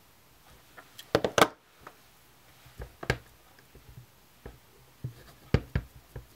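Sharp clicks and knocks of a clear acrylic stamp block and a plastic ink-pad case being set down and handled on a tabletop during rubber stamping: a quick cluster of taps about a second in, one near the middle, and two more near the end.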